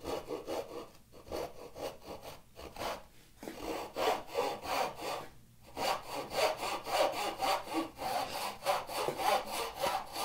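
Carcass saw, a hand backsaw, cutting down into a clamped hardwood board toward a marking-gauge line. The first strokes are short and uneven while the cut is started, then it settles into a steady back-and-forth rhythm about six seconds in.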